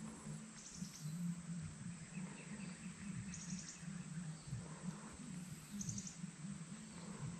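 Short, high chirping calls of a small wild animal, repeating about every two and a half seconds, over a steady low hum.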